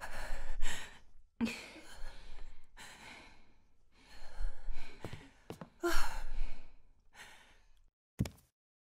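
A frightened child breathing heavily, with about five sighing breaths and gasps. A short thump comes near the end.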